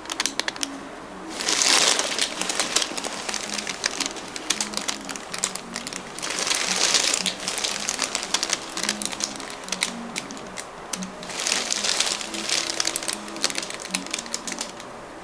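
Dry rustling and crackling friction from hands working the trapezius and neck muscles, full of small clicks and swelling three times, over soft background music.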